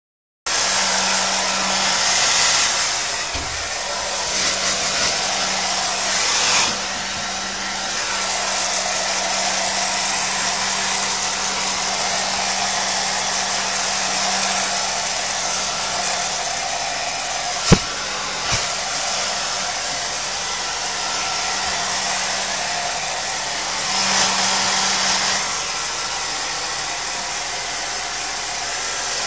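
Handheld hair dryer running steadily as it dries a dog's wet coat, the air rush and motor hum swelling and fading at times as the nozzle moves. A single sharp click about two-thirds of the way through.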